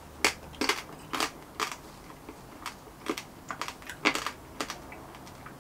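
Close-up chewing of roast pork crackling, a series of irregular crisp crunches, a few each second. The skin is a bit leathery still.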